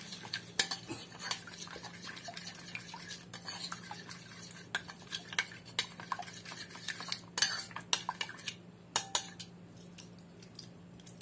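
Metal spoon stirring a thick marinade in a ceramic bowl, clinking and scraping against the bowl in quick, irregular taps. The clinks grow sparser toward the end.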